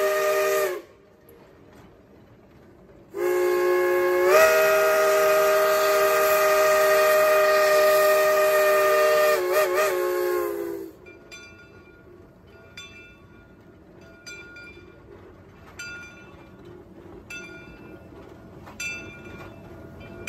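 Steam locomotive whistle, several notes at once. One blast ends just after the start, and a long blast of about eight seconds follows a few seconds later. The long blast steps up slightly in pitch about a second after it starts and wavers just before it cuts off. After that comes a quieter, steady clicking of the moving train, about one click every three-quarters of a second.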